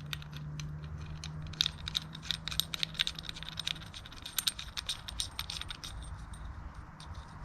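Small metal parts of a belt tensioner assembly clicking and clinking together as they are handled and seated by hand, a spacer and cup going onto the bolt; a rapid, irregular series of light metallic taps.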